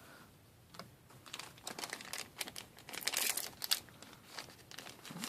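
Crinkling and rustling of trading-card packaging and cards being handled, in irregular bursts with small clicks, busiest a little past the middle.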